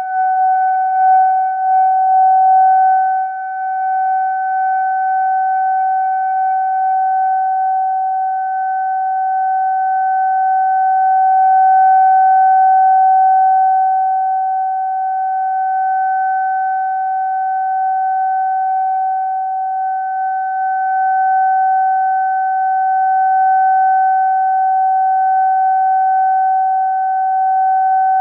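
Siren giving one long, steady tone, swelling and fading gently in loudness: the signal for a moment of silence on the anniversary of the March 11 earthquake.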